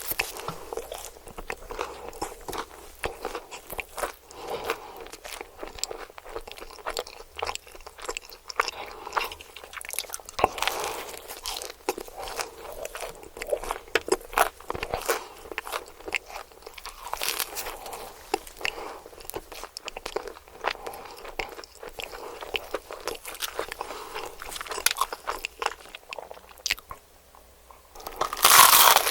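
Close-miked biting and chewing of crispy KFC fried chicken: a steady run of sharp crunches and crackles of the breading. Just before the end the crunching stops briefly, then a louder, denser crunch begins.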